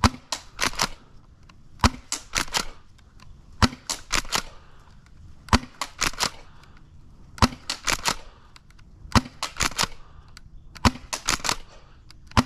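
Spring-powered pump-action airsoft shotgun firing three-BB shots over and over, seven shots about two seconds apart, each sharp snap followed by a quick run of clicks.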